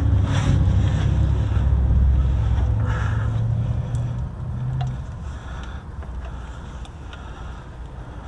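A diesel engine runs with a steady low hum, then drops away about five seconds in.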